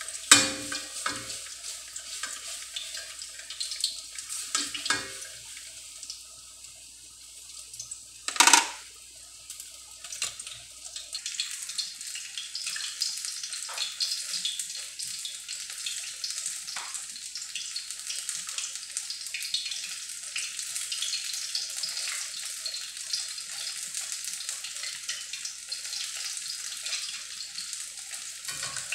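Battered banana fritters frying in hot oil in a wok: a steady sizzle and crackle. A few light knocks come in the first seconds and a loud sharp knock about eight seconds in.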